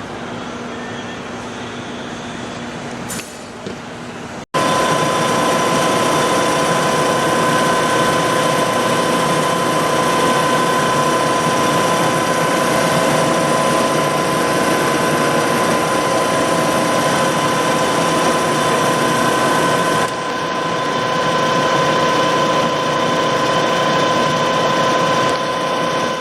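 Giddings & Lewis Bickford Chipmaster radial drill running, a steady machine hum with several constant whining tones from its drive. Quieter for the first few seconds, then after an abrupt break it runs loud and steady, dipping briefly about twenty seconds in before building back up.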